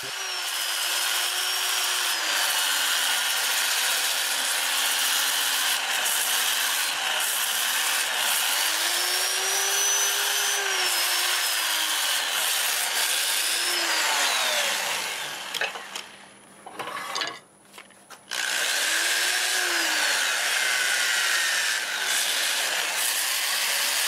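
Power sanding a spinning mimosa bowl on a lathe: a handheld rotary sander's disc rubbing against the turning wood, its motor pitch wavering as the pressure changes. The sanding breaks off for a few seconds about two-thirds of the way through, then resumes.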